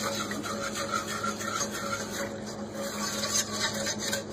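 A utensil scraping and rubbing around the bottom of a pan, stirring a milk sauce thickened with a flour and butter roux.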